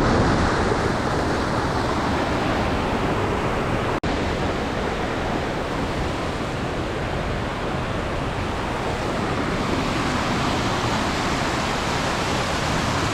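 Steady rush of a large waterfall close by: an even, unbroken noise of falling water, with a brief break about four seconds in.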